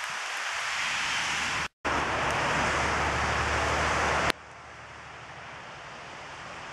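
Storm wind gusting across the microphone with rain, a loud steady rush of noise. It cuts out for a moment a little under two seconds in, and about four seconds in drops suddenly to a quieter, steady rush of wind and rain.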